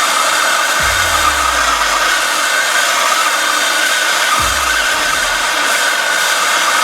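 Handheld propane torch flame hissing steadily as it heats a rust-seized steel axle pin to break the rust free. A couple of brief low rumbles sound under the hiss.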